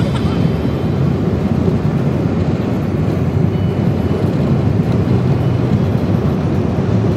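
Steady road and wind noise of a car driving at highway speed, heard from inside the car: a loud, even rush that sits mostly low.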